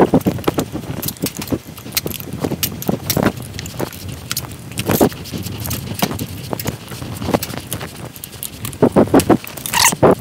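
A new motorcycle front tire being worked over the wheel rim to mount it on its inner tube: irregular knocks, clanks and scraping as the rubber bead is forced onto the rim, with a short squeak near the end.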